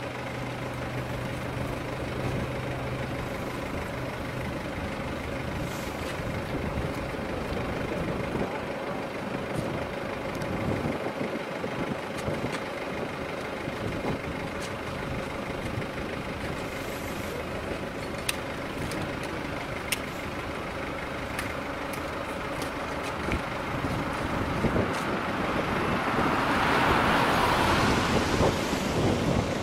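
Steady drone of idling engine machinery at a road-accident rescue, with a constant hum. A few faint clicks, then a louder hissing rush swells near the end.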